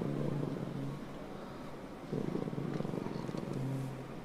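Low murmur of a large congregation reciting dhikr under their breath after the dawn prayer, with a man's low voice holding a note at the start and again near the end.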